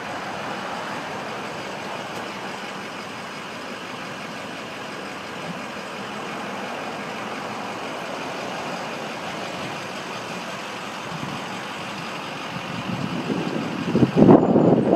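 Steady motor vehicle noise with no distinct events, ending in a cut to louder, irregular sound near the end.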